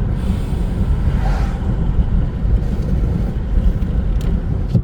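Steady low road and engine rumble of a car being driven, heard from inside the cabin. A brief hiss comes about a second in, and a sharp click near the end.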